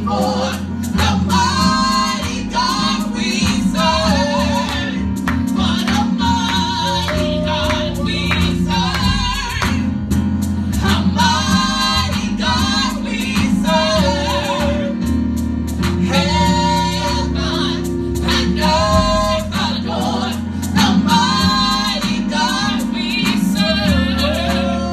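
Two women singing a gospel song together into handheld microphones over sustained instrumental backing.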